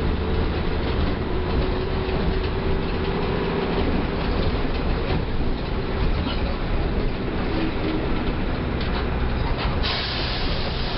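Mercedes-Benz OF 1318 bus's diesel engine running steadily under way, with road and body rumble. A hiss sets in about ten seconds in.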